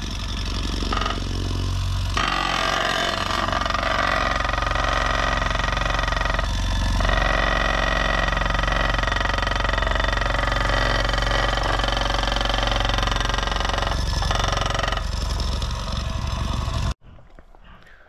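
Homemade plate compactor driven by an electric vibration motor, running over loose asphalt crumb: a steady low hum with a continuous rattle. It stops abruptly a second before the end.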